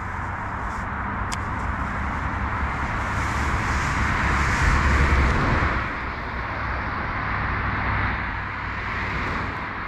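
Road traffic: a steady hiss and rumble of vehicles on a main road, swelling as a vehicle passes about four to five seconds in.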